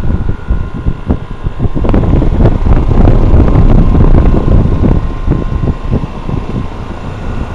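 Loud rumbling air buffeting the microphone, building to a peak around three to four seconds in and then easing. Under it is the steady hum of a running Carrier central air conditioner's outdoor condenser unit, which is taken to have a scroll compressor.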